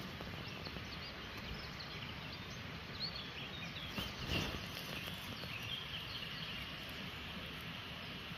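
Woodland ambience: a steady background hiss and low rumble with several birds chirping and singing faintly, and a brief soft knock or rustle about three seconds in and again a little after four seconds.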